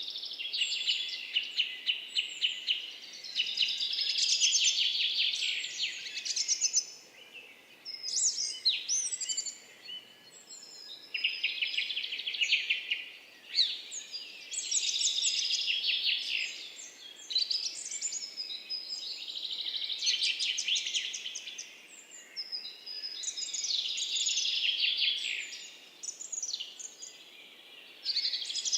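Songbirds singing in long phrases of rapid trills and chirps, each lasting a few seconds, with short pauses between phrases.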